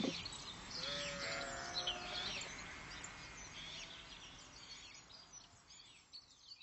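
Countryside ambience of many small birds chirping and twittering, gradually fading out near the end.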